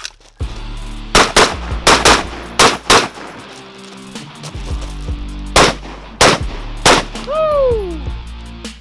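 A 14.5-inch FERFRANS piston-driven AR-15 carbine firing rapid pairs of shots, about six between one and three seconds in, then three more spaced shots between five and a half and seven seconds. A short falling whine follows the last shot.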